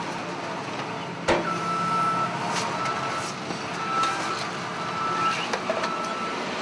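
Heavy machinery's reversing alarm beeping, about five long beeps roughly a second apart, over a running engine. A loud metallic clank comes just before the beeps start, about a second in.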